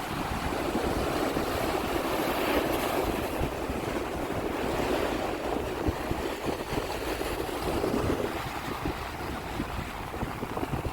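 Sea waves washing onto the shore, a steady surging rush that swells and eases, with some wind noise on the microphone.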